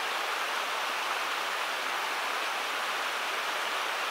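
Running water rushing steadily, an even hiss with no break or change.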